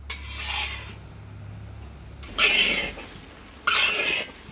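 Long-handled metal spatula scraping and turning chopped vegetables in a large iron wok, in three strokes: a softer one at the start and two louder ones in the second half.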